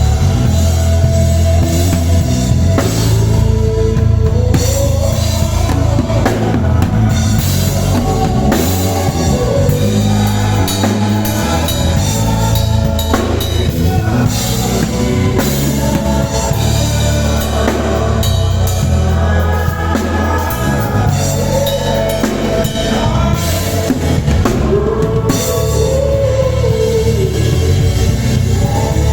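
Live band playing together with drums, bass, keys and guitar, with singers' voices over it.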